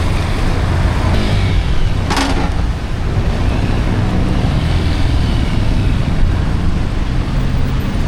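Steady motorcycle engine and road-traffic noise heard while riding, with one short sharp noise about two seconds in.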